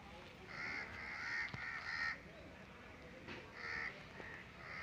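Crows cawing faintly: three quick harsh caws about half a second in, then a few more after a short pause.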